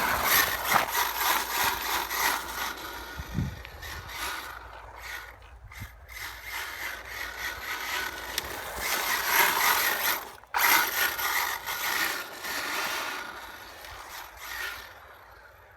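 HPI WR8 Flux brushless electric RC rally car driving on a soaking wet road, a hiss of tyres and spray mixed with motor whine that swells and fades as it runs to and from the camera. The sound cuts out sharply for a moment about ten and a half seconds in and dies away toward the end.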